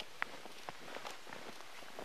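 Footsteps crunching in deep snow, soft irregular steps about twice a second, the sharpest one about a quarter second in, over a steady hiss.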